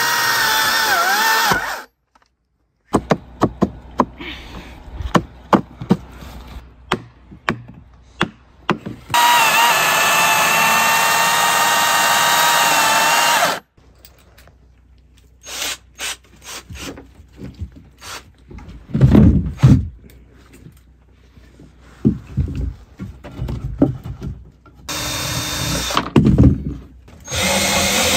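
A power tool's motor running in stretches with a steady whine, the first run winding down in pitch as it stops. Between the runs come wooden knocks and a few loud thumps.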